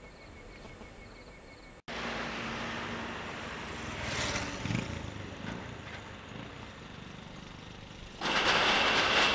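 Road traffic: a steady hiss of passing vehicles, with a loud rushing as a vehicle passes close by near the end. Before that, for about two seconds, faint rhythmic insect chirping, cut off abruptly.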